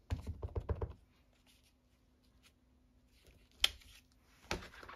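Clear acrylic stamp block dabbed rapidly against an ink pad, a quick run of light taps lasting about a second. Later, two sharp separate knocks of the acrylic block against the work surface.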